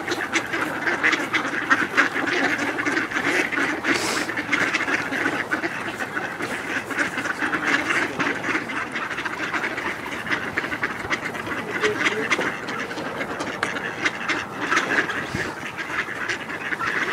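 A close group of ducks, mallards among them, quacking and chattering without a break, a dense jumble of short overlapping calls.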